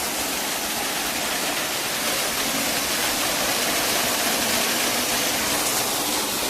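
Waterfall with water falling and splashing steadily in an even, unbroken rush.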